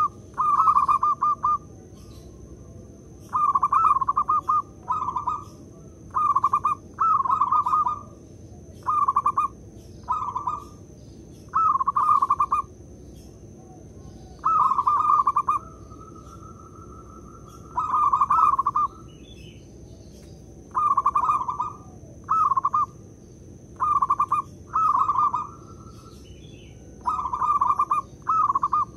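Zebra dove (perkutut) calling: short bursts of quick, rolling coos, each under a second long, repeated every second or two with a few longer pauses.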